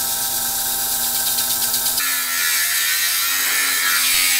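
A metal lathe runs, spinning a large metal tube while it is worked by hand. About two seconds in it changes abruptly to an angle grinder with an abrasive disc grinding the tube's end.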